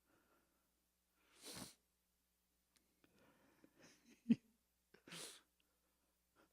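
A man's sharp breaths into a close microphone, two short gusts about four seconds apart, with faint mumbling and a brief knock between them.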